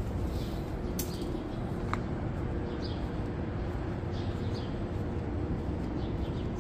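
Birds chirping faintly now and then over a steady low background rumble, with a single sharp click about a second in.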